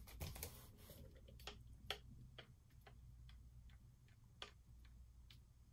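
Wooden craft stick stirring thinned acrylic paint in a plastic cup, knocking against the cup's side: faint, irregular light clicks, about two a second.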